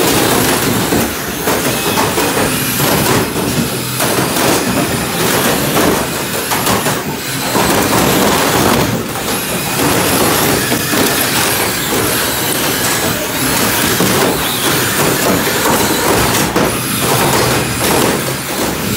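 Several radio-controlled derby cars driving and ramming each other on a plywood floor: their motors, wheels rolling on the boards and plastic bodies knocking together make one constant noise, broken by many short impacts.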